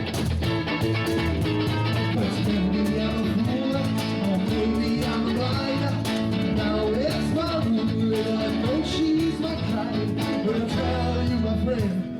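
Live rock band music: an instrumental passage led by guitar, its notes bending up and down, over bass and drums.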